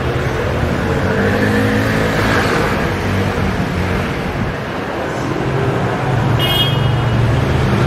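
City street traffic: motor vehicles passing with engines running, one swelling past about two seconds in. A brief high-pitched tone sounds near the end.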